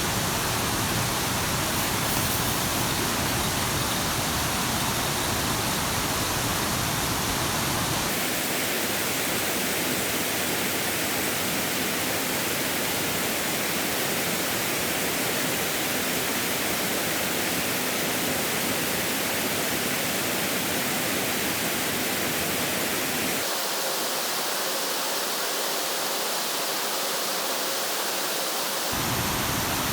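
Steady rushing water noise of a flowing river, with no distinct events. Its deep rumble drops away abruptly about eight seconds in and again for a few seconds near the end.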